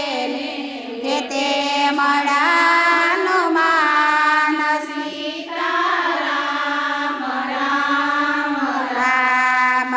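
Group of women singing a Gujarati devotional kirtan together, a continuous chant-like melody sung in long phrases.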